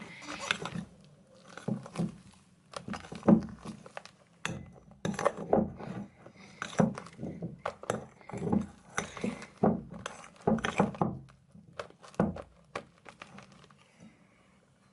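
A spoon stirring stiff, foamy slime of glue, shaving foam and borax water in a bowl, with irregular clinks and scrapes of the spoon against the bowl.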